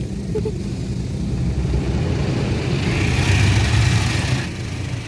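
Car engine and road noise heard inside a moving car as a steady low rumble. About three seconds in it swells louder with a rushing hiss for a second and a half, then settles back.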